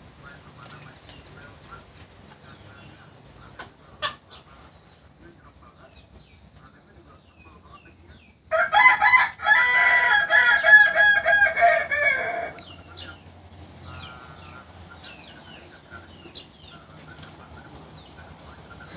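A young kukuak balenggek cockerel, still learning to crow, gives one long crow of about four seconds. It runs in several linked, stepped segments and drops in pitch at the end.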